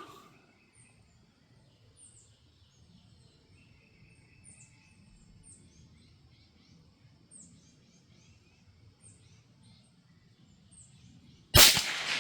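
A bird gives short high chirps again and again over quiet background, then near the end a single loud shot from a Marlin 782 bolt-action .22 Magnum (.22 WMR) rifle firing CCI Maxi-Mag rounds, with a long fading echo.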